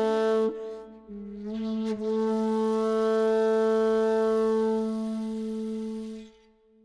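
Shakuhachi playing a slow, breathy phrase: a short note, then a dip to a lower pitch that slides up into a long held note of about four seconds, which fades away near the end.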